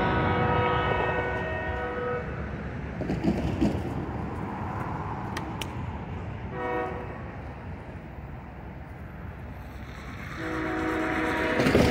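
Diesel locomotive's multi-chime air horn: a long blast that ends about two seconds in, a short blast near the middle, and another long blast starting near the end, the pattern sounded for a grade crossing. Underneath is the steady low rumble of the approaching train.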